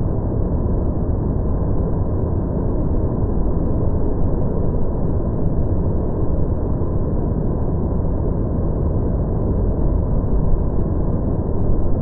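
Fukuroda Falls, a wide tiered waterfall in full rainy-season flow, pouring steadily: a deep, even rush of falling water with no highs.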